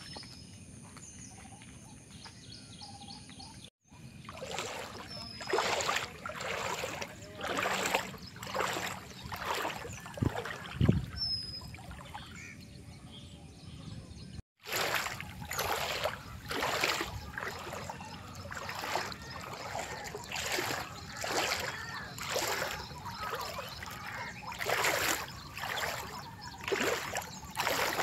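Footsteps splashing through shallow floodwater at a walking pace, one or two splashes a second. A bird chirps now and then.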